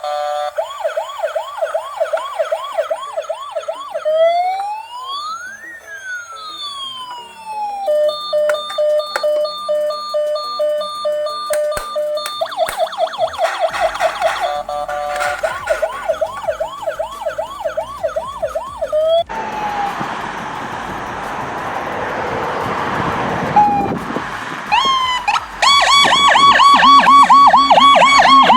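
Electronic ambulance siren sounds from toy ambulances, one after another: a fast warbling yelp, then two slow wails rising and falling across each other, then steady alternating tones and another fast yelp. A rushing noise takes over past the middle before a fast yelp returns near the end.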